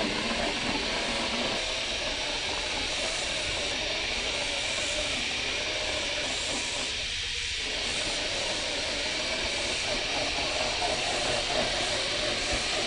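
1/6 scale FMS Jimny RC crawler driving over a dirt trail: a steady hiss of its electric motor and gears with the tyres on loose dirt, which drops away briefly about seven seconds in.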